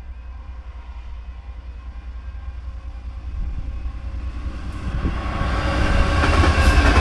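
Freightliner Class 66 diesel locomotive approaching and passing over a level crossing, its engine and wheels on the rails getting steadily louder and loudest near the end. Under it, the crossing's alarm sounds a repeating warble.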